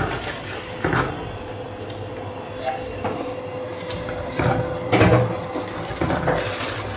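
Masala paste frying in hot oil in a nonstick wok, a steady sizzle, with a silicone spatula scraping and knocking against the pan several times as the paste is stirred.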